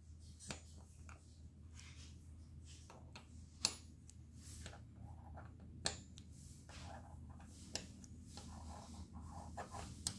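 Steel hex bolt tapping and scraping against the metal magnet pockets of a 3D printer's magnetic hotbed: about five sharp metallic clicks a second or two apart, the loudest near the middle, with soft scraping between them as the bolt is worked in and out of the pockets.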